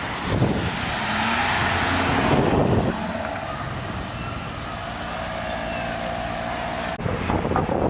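A supercar's engine, its pitch rising briefly in the first few seconds, then running steadily at a low pitch. About seven seconds in, the sound cuts off abruptly and different, noisier street sound follows.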